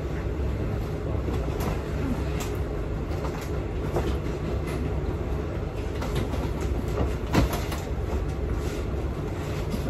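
Steady low rumble of a passenger train, with scattered light clicks and knocks and one sharper knock about seven seconds in.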